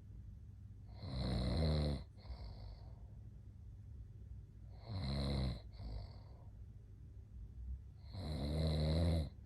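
A man snoring in his sleep: three long snores about every four seconds, each lasting about a second and followed by a shorter, quieter breath.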